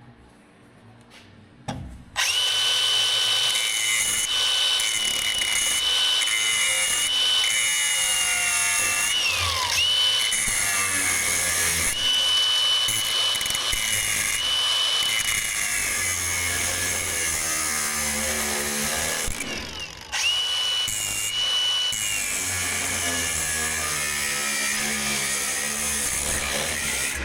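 Angle grinder cutting through welded steel panels. It starts about two seconds in with a steady high whine that sags in pitch as the wheel bites, stops briefly about two-thirds of the way through, then starts again.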